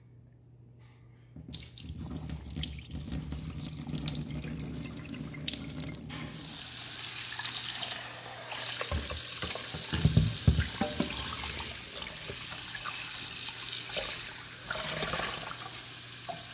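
Kitchen faucet running into a stainless steel sink as the bloody soaking water is drained from a plastic mixing bowl and a whole rabbit carcass is rinsed under the stream. The water starts about a second and a half in, and a few louder thuds come around ten seconds in.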